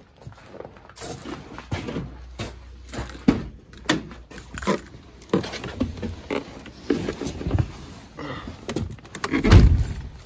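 Handling noise and irregular knocks of someone climbing into a pickup truck's cab and working the door, with a heavy low thump about nine and a half seconds in. The engine is not running yet.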